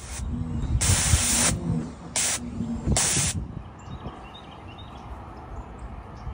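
Four short bursts of hissing spray, the second the longest at under a second, the rest shorter, stopping about three seconds in.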